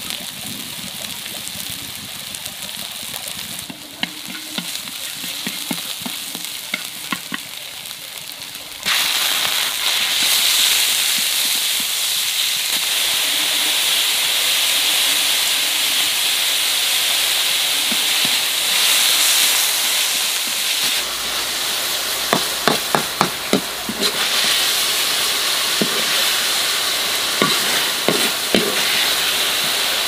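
Beef slices and julienned ginger sizzling as they stir-fry in oil in a wok, the hiss getting louder about nine seconds in. Near the end, quick runs of clicks as a metal spatula scrapes and taps the wok while scooping the meat out.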